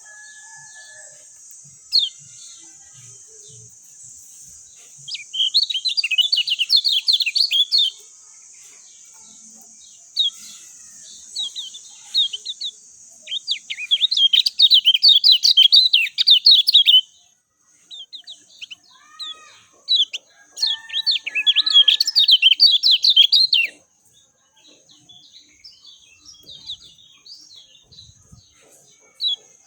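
Kecial kuning (white-eye) songbird singing in fast, high twittering bursts: three runs of a few seconds each, with short scattered chirps between. A steady high hiss lies under the first half and thins out past the middle.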